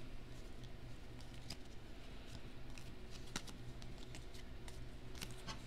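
A stack of baseball trading cards being slid through by hand, one card at a time. Scattered soft clicks and swishes of card on card, with the sharpest snap about halfway through and a few quick ones near the end.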